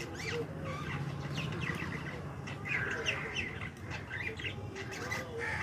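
A bird giving a string of short chirping calls, one after another.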